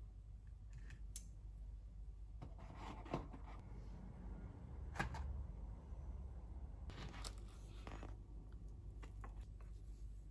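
Quiet kitchen handling sounds as crisp toasted tortilla bowls are stacked on a cake stand. A sharp click comes about a second in, a short rustling scrape around three seconds, another knock about five seconds in, and more dry rustling a couple of seconds later.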